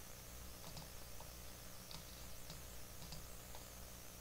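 Several faint, irregular clicks of computer controls (mouse and keys), over a steady low hum.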